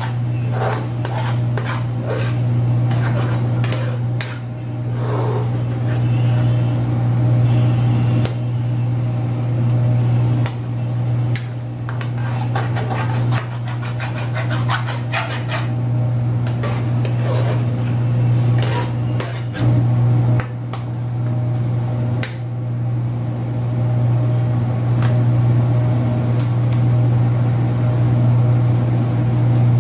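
Metal spoon scraping and tapping against an aluminium frying pan as scrambled egg and sardines are stirred, the strokes stopping about three quarters of the way through, over a loud steady low hum.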